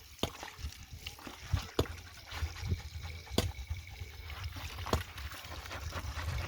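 Water sloshing and trickling, with a sharp knock about every second and a half.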